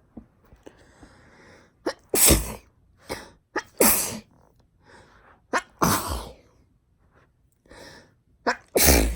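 A girl sneezing four times, about two, four, six and nine seconds in. Each sneeze follows a quick, sharp in-breath, with fainter breathing between them.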